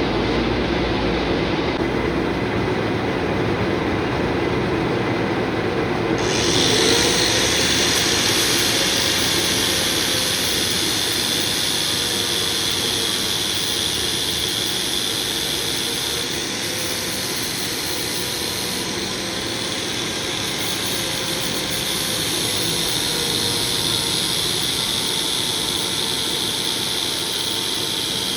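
Steady workshop machinery running, with a loud hiss joining about six seconds in and carrying on.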